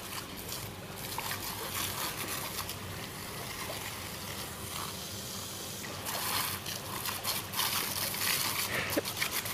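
Steady hiss and splatter of a jet of water sprayed from a hose nozzle, with irregular sharp splashes as a dog bites and snaps at the stream; it gets a little louder from about six seconds in.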